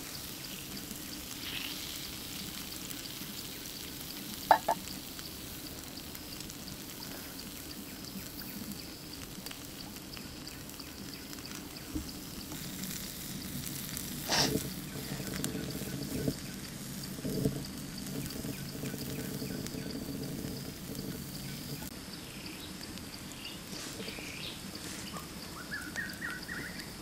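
Pig's liver sizzling on a hot stone, a steady crackling hiss. A short, sharp squeak about four seconds in and a knock about halfway through stand out above it.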